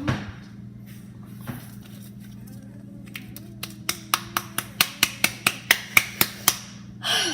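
A run of about a dozen sharp clicks, roughly four a second, starting about halfway through, then a short burst of noise near the end.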